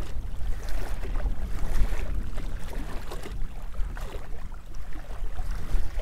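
Strong gusting wind buffeting the microphone in an uneven low rumble, with small wind-driven waves lapping at the shoreline.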